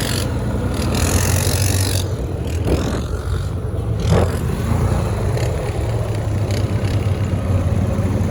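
Four-wheel-drive ATV engine running with a steady low drone.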